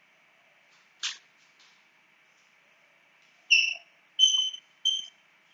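Chalk on a blackboard: a sharp tap about a second in, then three short, high, steady-pitched squeaks in quick succession as the chalk is drawn across the board while writing.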